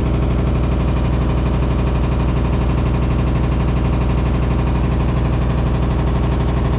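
Hitachi SF-150TCV 15 kg washing machine in its spin cycle: a loud, steady hum with a fast, even rattle. The owner finds it really loud and is unsure whether this spin noise is normal.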